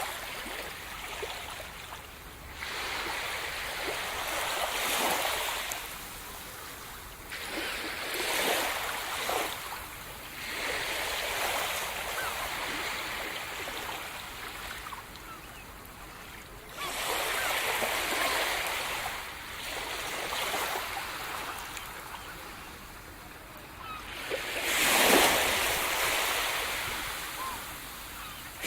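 Sea surf breaking and washing up the shore, one wave after another every few seconds. Each surge rises and falls away, and the loudest wave breaks near the end.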